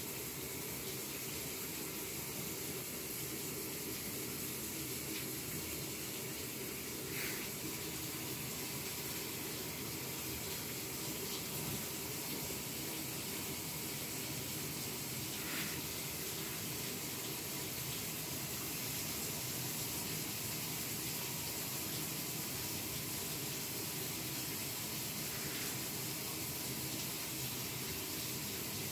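A steady, even hiss, with a few faint brief clicks.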